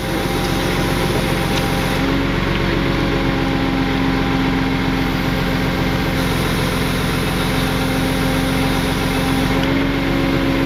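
Tow truck engine running steadily while its winch hauls a car out of a ditch. A steadier, stronger tone comes in about two seconds in and holds until near the end while the winch is pulling under load.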